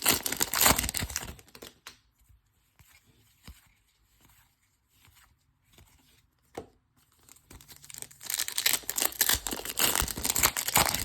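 Foil wrapper of a baseball card pack crinkling and tearing as it is ripped open. The noise comes in two spells: for about two seconds at the start, and again for about three seconds near the end, with only a few small clicks in between.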